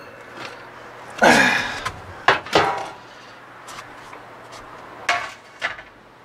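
Metal handling inside an electric smoker: a steel meat probe and the wire rack clinking and scraping against the cabinet. A loud scrape falling in pitch about a second in, then two sharp clinks, and two lighter clicks near the end.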